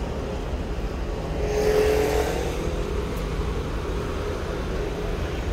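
Road traffic under a bridge: a steady low rumble of cars, with one vehicle swelling louder as it passes about two seconds in.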